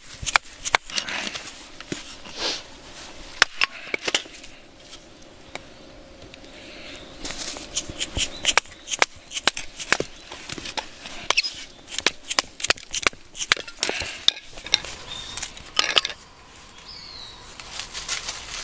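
A hatchet driven through a stick of firewood by blows of a shockless hammer on the back of its blade, splitting kindling: sharp wooden knocks at irregular intervals, some in quick runs of several.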